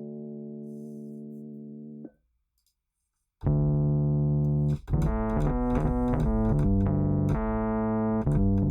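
UAD Electra 88 software electric keyboard playing presets. A held chord fades and cuts off about two seconds in. After about a second of silence, a new bass-heavy preset starts and plays a run of changing notes and chords.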